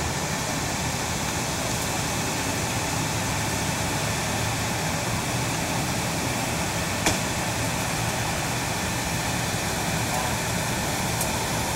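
Steady drone of vehicle engines idling, with a single sharp click about seven seconds in.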